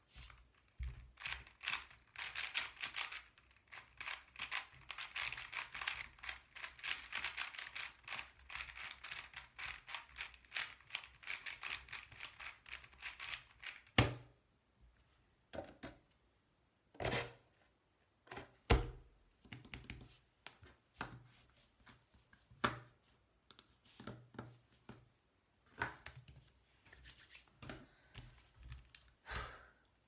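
A MoYu Aosu GTS2 M 4x4 speedcube being turned by hand to scramble it, with rapid plastic turning clicks through the first half. A single sharp knock comes about halfway through, followed by scattered separate clacks as the cube is handled and set down on the mat.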